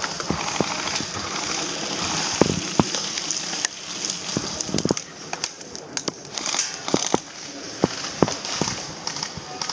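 Irregular sharp clicks and cracks scattered over a steady rustling hiss.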